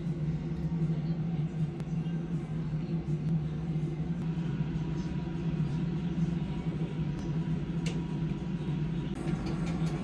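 Steady low machine hum with faint background voices and a few light clicks.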